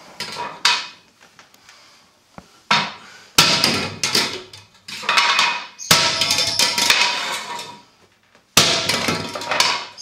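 Hard hammer blows striking a molded hummingbird feeder, about five of them, each ringing on for a second or more: a demonstration that the feeder is virtually indestructible.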